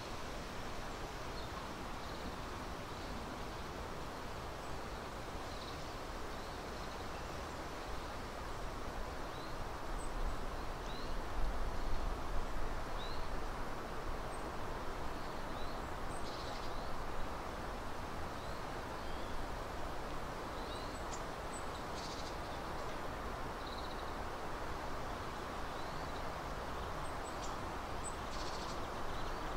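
Steady outdoor background noise with short, high bird calls scattered through it, one every second or two. A low rumble rises briefly about ten to thirteen seconds in.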